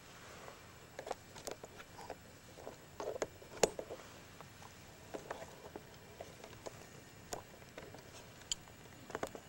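Scattered small clicks and rustles of handling, with one much sharper, louder click about three and a half seconds in and a cluster of clicks near the end.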